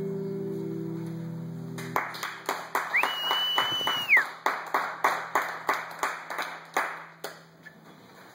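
The last guitar chord of a song rings on and stops about two seconds in. A small group then claps for about five seconds, the claps sharp and separate, and someone gives a short whistle near the start of the clapping.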